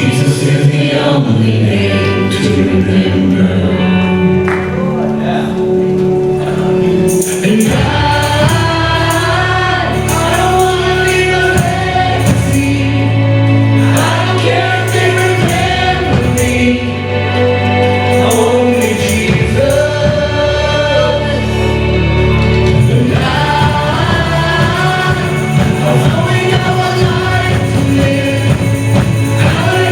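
Gospel-style worship song: a choir singing over instrumental accompaniment with sustained bass notes.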